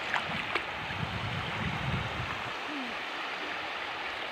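Small waves washing onto a shallow beach: a steady hiss of surf.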